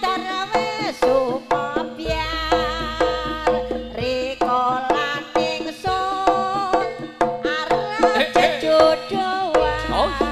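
Live jaranan music: hand drums beating a steady, even rhythm under a pitched melody line. A deep low tone comes in about two seconds in, stops near the four-second mark and comes back near the end.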